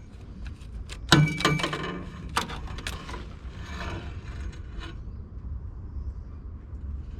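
Metal oil filter wrench clicking and scraping on a stuck oil filter. There is a loud, ringing metal clank about a second in, then single clicks and a short stretch of scraping.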